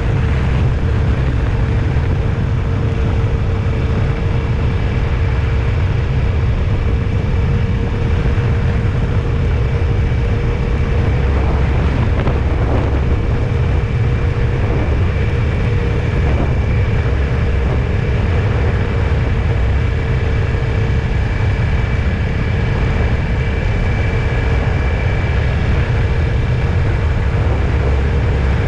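Road vehicle driving: a steady low rumble of engine and road noise, with a faint steady whine above it.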